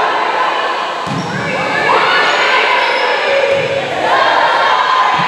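Volleyball rally in a gymnasium: players and spectators shouting and cheering, with a couple of thuds of the ball being hit, about a second in and near the end.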